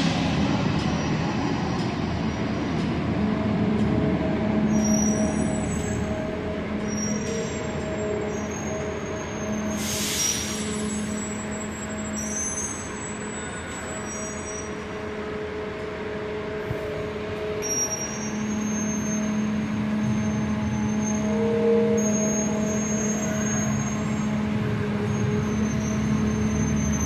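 Transit buses running in an enclosed bus terminal: a steady engine hum, two sharp air-brake hisses (one right at the start, one about ten seconds in), and short high squeals throughout.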